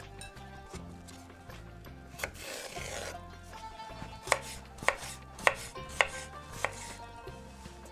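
Knife chopping on a cutting board: sharp separate chops, one a little over two seconds in, then a run of about five in quick succession in the second half.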